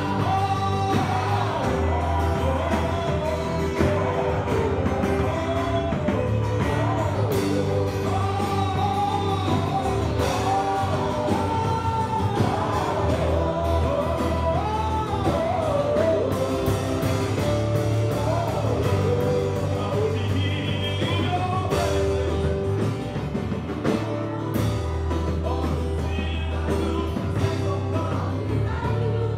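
Live gospel music: a voice singing a melody over a band with a steady, deep bass line.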